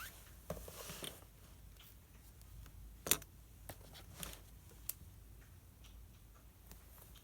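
Light desk sounds while studying: scattered small clicks and taps, with a brief rustle near the start and one sharper click about three seconds in.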